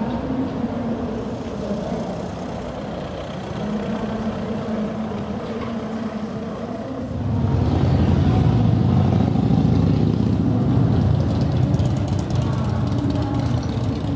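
Street ambience with the low rumble of a motor vehicle engine. About seven seconds in the rumble steps up and becomes much louder and fuller.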